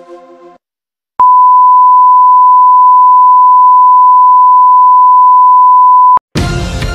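Broadcast test tone accompanying colour bars: one steady, loud, unbroken beep at a single pitch, lasting about five seconds and cutting off suddenly. A music sting fades out just before it, and new ident music starts right at the end.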